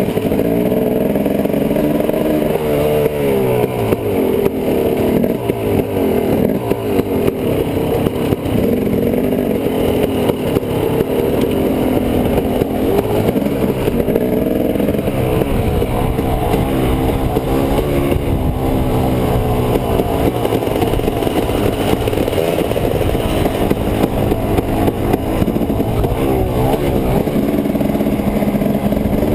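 Dirt bike engine running under the rider as it rides a rough dirt trail, its pitch rising and falling again and again with the throttle.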